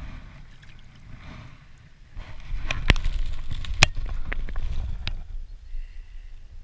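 Water sloshing and splashing as a pike is lowered by hand into the shallows and held there, with a few sharp knocks, loudest about three and four seconds in, over low wind rumble on the microphone.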